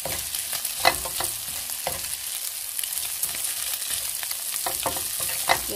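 Flat egg noodles and scrambled egg sizzling in a nonstick frying pan while a spatula stirs them, with a few sharp knocks and scrapes of the spatula on the pan, the loudest about a second in and near the end.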